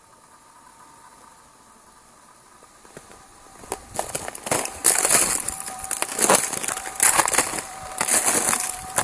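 Loud, irregular crunching on ice and frozen crust, the way footsteps sound walking over it, starting a few seconds in after a faint steady hum.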